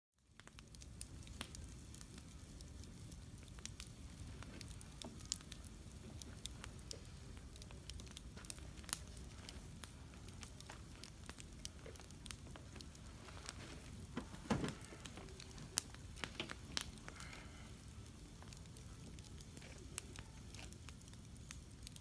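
Wood campfire burning in a metal fire pit, crackling with scattered sharp pops over a low steady background; a louder flurry of pops about two-thirds of the way through.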